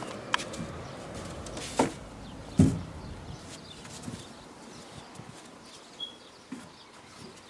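Knocks and clatters of a white plastic chair being carried and set down at a wooden table, the loudest about two and a half seconds in, over a steady outdoor background hiss.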